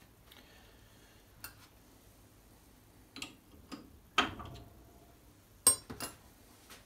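A few scattered metallic clicks and knocks from hands working on a lathe chuck and headstock. The loudest come about four seconds in, with a short ring, and just before the end.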